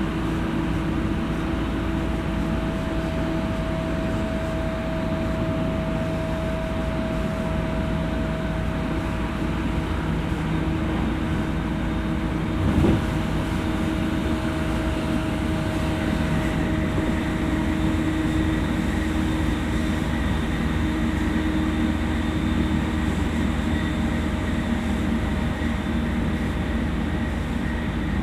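E231-series electric commuter train running at speed, heard from inside a passenger car: a steady rolling rumble with several steady humming tones. A single knock sounds about halfway through.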